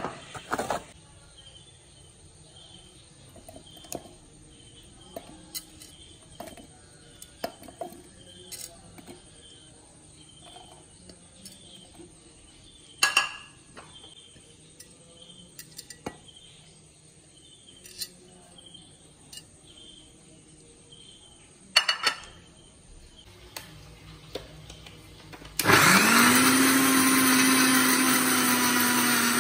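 Electric mixer grinder switched on near the end, its motor spinning up quickly and then running steadily at a constant pitch as it grinds onion, garlic and ginger in a steel jar. Before that, only a few light clicks and knocks.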